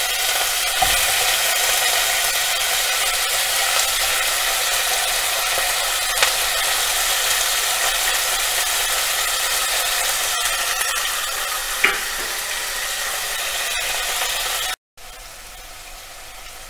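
Raw chicken pieces frying in hot oil in a stainless steel pan, a steady sizzle with a few faint clicks. Near the end it cuts out for an instant and comes back quieter.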